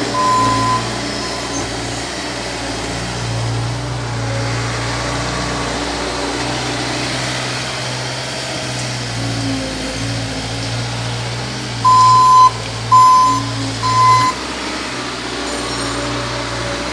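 Bobcat S450 skid-steer loader's diesel engine running steadily as it digs and moves soil. Its backup alarm beeps once near the start and three times in a row, about a second apart, past the middle.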